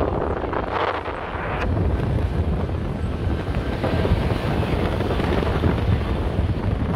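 Vehicles driving on beach sand: a steady low rumble, with wind buffeting the microphone and a brief stronger gust about a second in.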